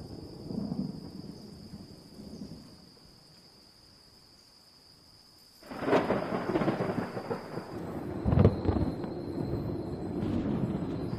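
Thunder: a low rumble dies away almost to quiet, then a sudden loud thunderclap about halfway through rolls on in a long rumble with another strong peal a few seconds later.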